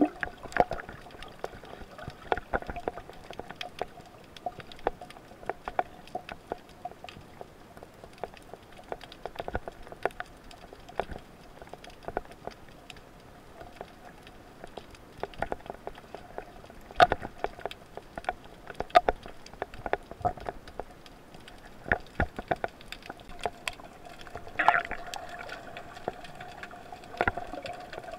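Underwater sound picked up by a camera in its waterproof housing: scattered sharp clicks and crackles over a steady faint hum, with a brief louder burst near the end.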